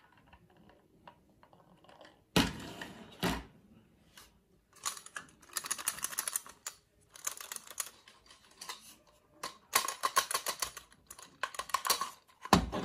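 Plastic toy food skewers clattering in a paper cup as it is picked up and handled: rapid runs of light clicks, with single knocks about two and three seconds in and another near the end.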